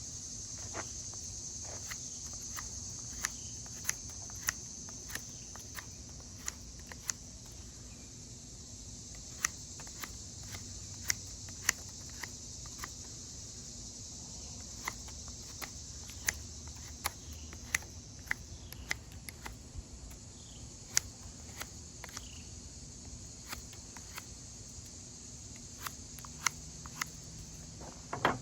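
A steady high insect drone of crickets or cicadas, with irregular sharp clicks and ticks about once or twice a second over it.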